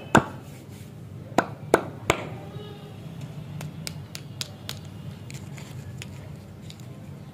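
Fingers handling plastic-wrapped lollipops: four sharp taps in the first two seconds, then lighter clicks and crinkles as a lollipop's plastic wrapper is picked at and worked open.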